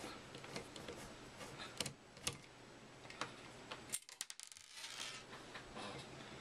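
Faint, scattered metallic clicks and ticks of a hand screwdriver working screws out of the metal chassis around a 3.5-inch hard drive, with a quick cluster of clicks about four seconds in.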